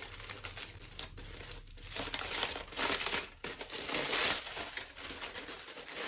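Aluminium foil wrapping being peeled open and crinkled by hand, an irregular crackle that grows louder from about two seconds in.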